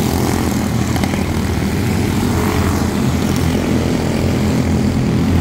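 Several Honda-powered quarter midget race cars running together as a pack, their small engines making a steady, loud drone as they lap a dirt oval.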